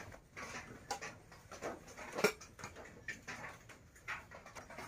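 Scattered light clinks and knocks of pots, bowls and utensils being handled at a cooking hearth, with one sharper knock about two seconds in.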